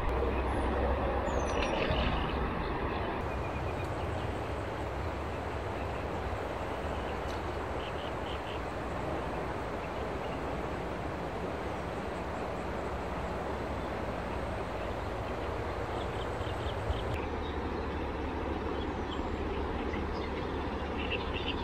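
Steady rushing noise of the flowing river, with a low rumble underneath.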